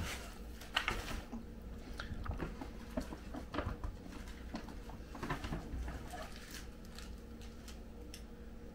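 Scattered soft rustles and small clicks of gift packaging being handled and unwrapped, several in the first few seconds and thinning out toward the end.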